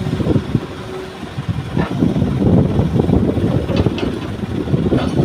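Excavator's diesel engine running under load as it lifts and swings a bucket of soil, with a dense, steady rumble that grows a little louder about two seconds in. A few short knocks come through near the middle and the end.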